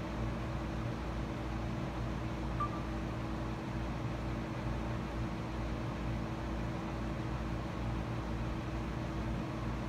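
Steady electrical hum over even hiss, with no distinct events apart from one brief high blip about two and a half seconds in.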